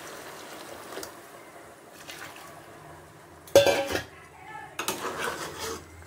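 Water poured into a hot metal pot of mutton curry hisses, dying away over the first second or so. A steel spoon then clatters and scrapes against the pot as the curry is stirred, with the loudest clank about three and a half seconds in.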